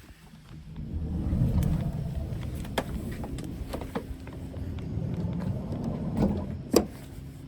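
Delivery lorry's engine running close by as a low rumble that swells up about a second in and drops away near the end, with scattered knocks and a sharp bang shortly before it fades.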